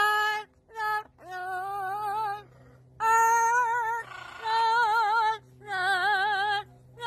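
Amazon parrot singing in a human-like, operatic voice: a series of long held notes with a strong wavering vibrato, about six phrases broken by short pauses.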